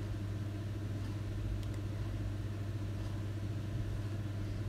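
Gram-flour batter dropping through a perforated ladle into hot oil and frying as boondi, a steady sizzle over a constant low hum.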